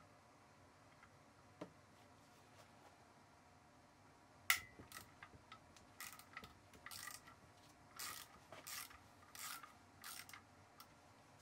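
Ratchet and socket loosening an M6 cylinder head bolt on a Kawasaki ZX-7R inline-four engine. A single sharp crack about four and a half seconds in marks the bolt breaking loose. Several short bursts of ratchet clicking follow as the handle is worked back and forth.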